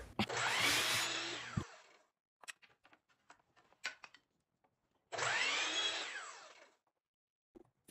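Sliding compound miter saw run briefly twice, cutting a thin wooden strip. Each time the motor's whine rises and then winds down.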